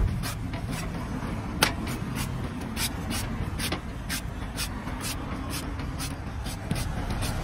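A cleaver chopping and shaving the husk of a green young coconut on a wooden block: a quick series of sharp chops, about two a second, one louder about a second and a half in, over a steady low rumble.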